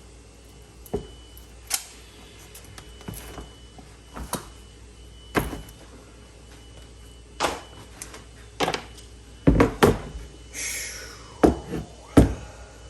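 Irregular knocks, clicks and thunks from handling a bent bicycle wheel while its tire is pulled off the rim, with a brief scraping rustle a little past the middle and the loudest knocks near the end.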